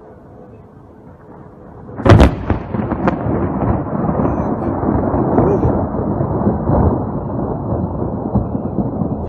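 A lightning strike: a sharp thunderclap about two seconds in, a second crack a second later, then loud rolling thunder rumbling for several seconds until it cuts off suddenly.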